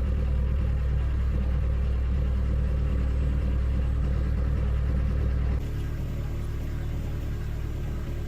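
An engine running steadily with a low rumble; the sound changes and drops slightly in level about five and a half seconds in.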